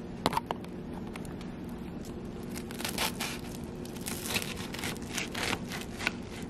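Table knife sawing through a toasted bread sandwich on a plate: a run of scratchy, crunching strokes as the blade cuts the crisp toast, after a couple of sharp clicks at the start.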